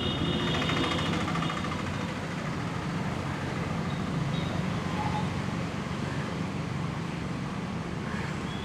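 Steady low background rumble, with a faint high-pitched tone that fades out about a second in.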